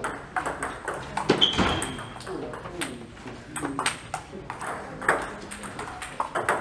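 Table tennis balls clicking irregularly off bats and tables. About a second and a half in there is a thump and a brief high squeak.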